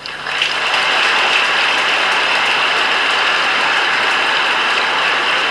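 Audience applauding, a dense, steady clapping that swells up within the first half second and holds.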